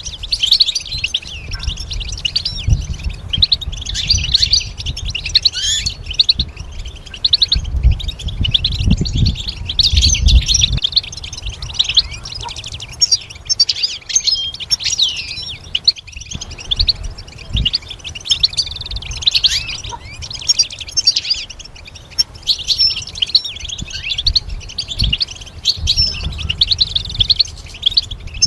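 European goldfinch singing: a fast, unbroken twittering song of chirps and trills, with a low rumble underneath at times.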